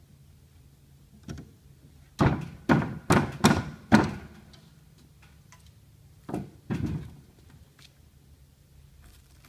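Hollow knocks from the parts of a resin chiavari chair being knocked together during assembly: one light knock, a quick run of five loud ones, then two more.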